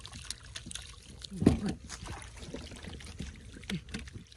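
Irregular water splashing and sloshing as hands and legs work through shallow muddy water, with a louder thump or splash about a second and a half in.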